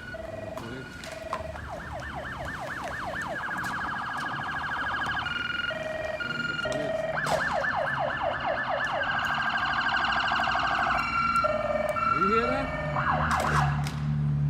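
Emergency vehicle siren switching between a fast yelp, rapid sweeping tones and a two-tone hi-lo pattern, growing louder as it approaches.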